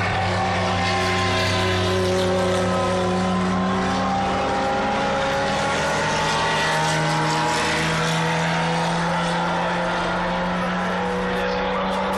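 Several historic racing car engines running hard as a pack laps the circuit. Their overlapping notes slowly slide up and down in pitch as the cars accelerate and ease off.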